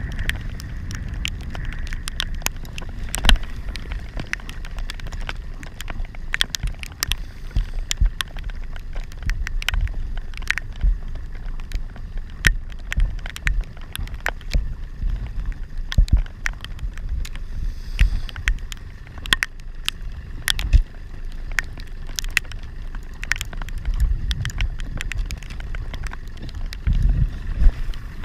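Raindrops hitting the camera housing in pouring rain as irregular sharp ticks, over a low rumble of wind and choppy water around a small boat.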